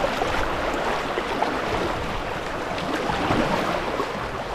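Steady rush of flowing river water around a kayak under way, without clear single strokes or splashes.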